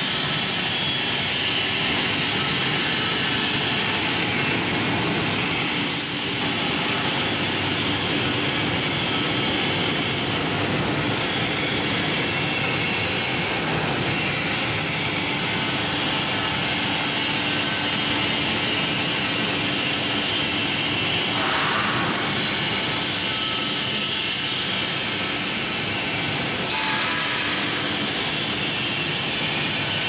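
Stainless-steel strawberry washing machine running: a steady rush of water churned by its bubble generator and sprayed from rows of nozzles, with the machine's even drone underneath.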